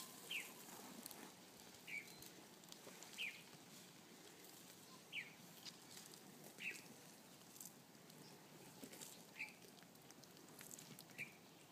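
A bird repeating a short, falling chirp seven times, one every one to two and a half seconds, with faint scattered clicks in between.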